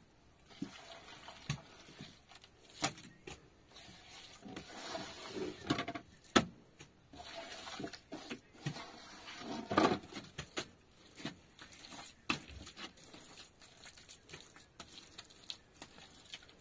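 Scattered knocks, taps and clicks at irregular intervals, with short rustling in between; the loudest knock comes about six seconds in.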